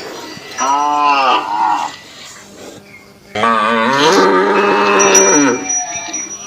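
An Indian cow mooing twice: a short moo about half a second in, then a longer moo of about two seconds that rises and then falls in pitch.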